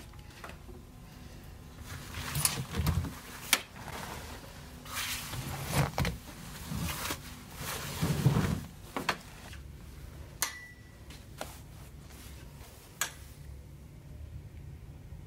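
Clothes being pulled out of a front-loading washing machine drum: cloth rustling with several sharp clicks and knocks from the machine and its door, dying down near the end.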